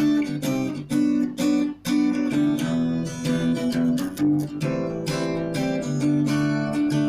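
Acoustic guitar music, strummed and plucked in a steady rhythm.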